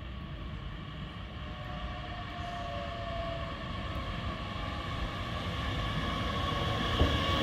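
Abellio Bombardier Talent 2 electric multiple unit pulling into the platform, its running noise growing steadily louder as it nears. A faint whine rides on the rumble, and there is a small knock near the end.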